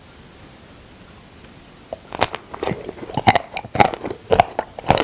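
Close-miked biting into a frozen milk caramel ice cream bar and chewing it. It starts about two seconds in, after a quiet moment, and goes on as a dense run of sharp bites and wet mouth clicks.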